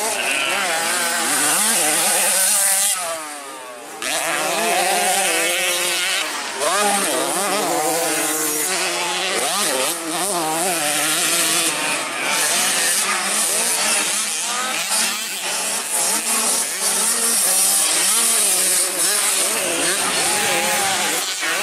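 Small two-stroke motocross engines of 65cc minibikes racing, with a buzzing note whose revs rise and fall again and again through the gears. The sound drops away briefly about three seconds in, then comes back.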